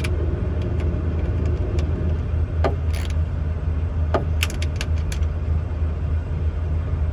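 Steady low rumble of an idling truck engine, with a few sharp metallic clicks and clinks from hand tools tightening the hood mirror's mounting nuts, clustered just under halfway through.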